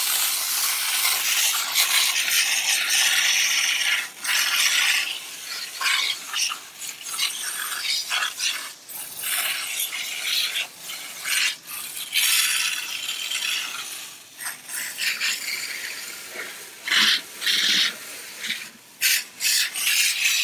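Ultimate Water Blaster garden-hose wand spraying a jet of water against a car's underbody, rinsing off degreaser and grime: a loud hiss of spray spattering off the metal and the ground. It runs steadily at first, then cuts in and out in frequent short breaks.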